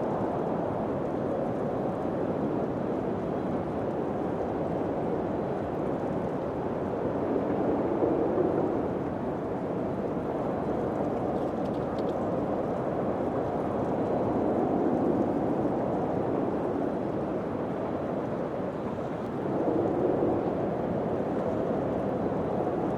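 Steady wind noise that swells and eases in slow gusts, with a faint click about halfway through.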